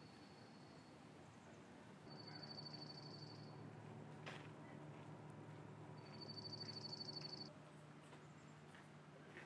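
A faint, high, rapid trill heard twice, each lasting about a second and a half, over a low steady hum.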